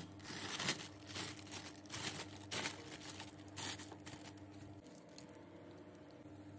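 Faint crinkling and rustling of a plastic oven roasting bag being handled and opened, a run of short crackles for about four seconds, then only a faint steady hum.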